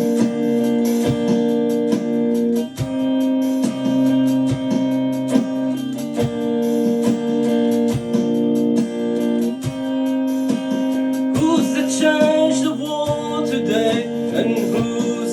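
Instrumental song intro: held keyboard chords with plucked, guitar-like notes struck over them in a steady rhythm. About eleven seconds in, a wavering lead melody comes in on top.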